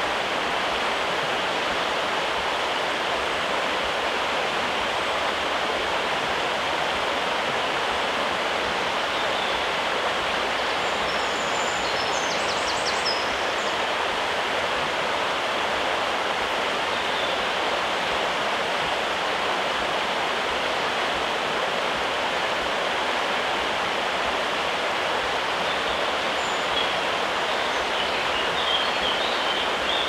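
River water rushing in a steady, unbroken roar. A few short, faint bird chirps come through about a third of the way in and again near the end.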